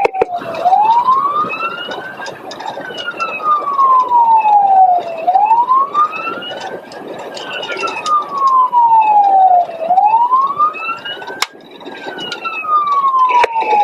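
Police car siren on wail, its pitch sliding slowly up and down about every four and a half seconds, over a steady rush of road and engine noise.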